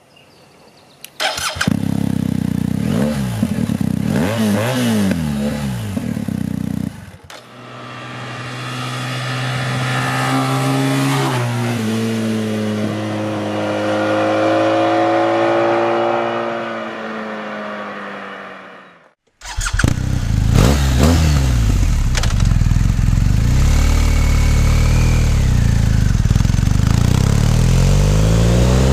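BMW R 1250 GS Adventure's 1254 cc boxer twin through its stock silencer, idling and blipped repeatedly. After about seven seconds it runs with a smoother note that climbs steadily, with one step. Then, from about twenty seconds in, it idles and is revved again.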